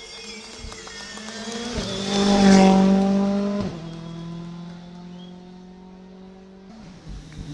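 Rally car engines at high revs. One grows loud and peaks about two and a half seconds in as it passes close by. It drops off suddenly, and then a second car holds steady revs as it approaches.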